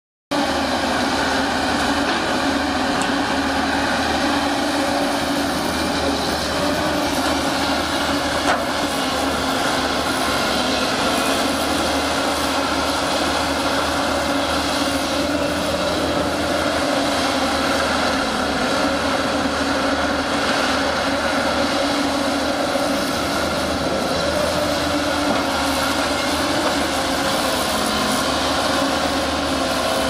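JCB tracked excavator's diesel engine running steadily under load while it digs, with one brief knock about eight seconds in.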